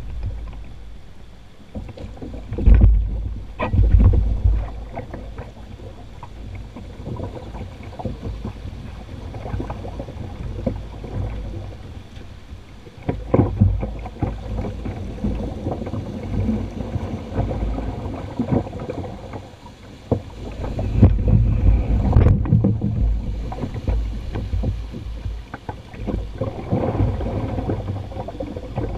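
Shallow river water rushing over rocks around a canoe being poled, with scattered knocks from the pole striking the stony riverbed and the hull. Low rumbling gusts of wind on the microphone swell up a few times, loudest about 3 and 4 seconds in and again around 21 to 23 seconds.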